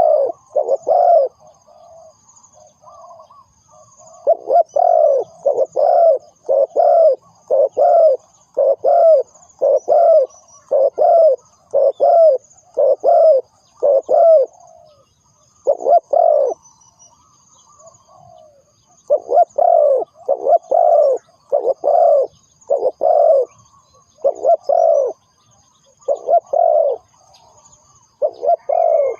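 Spotted dove cooing: a long run of low, hoarse coos repeated about once a second, broken by a few short pauses, with faint high twittering behind it.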